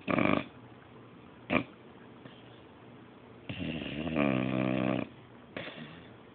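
A beabull (English bulldog–beagle mix) snoring in its sleep: a few short snores, then one longer, pitched snore about three and a half seconds in.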